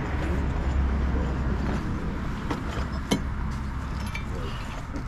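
Rusty old motorcycle parts being handled, with a sharp metal clink about three seconds in, over a low rumble.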